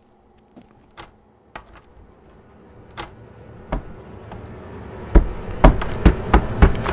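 Fists banging on a door: a few sparse knocks at first, then from about five seconds in a fast run of loud bangs, roughly three a second, over a rising rush of noise.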